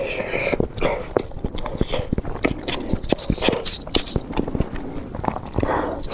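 Close-miked chewing of blood sausage in spicy sauce: rapid wet smacks and clicks of the mouth, several a second.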